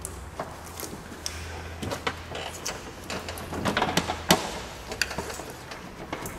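New radiator with an aluminium core and black plastic tanks being worked down into its mounting holes in a 2001 GMC Sonoma's radiator support: scattered light knocks, clicks and scrapes of plastic against the mounts, the loudest knock about four seconds in.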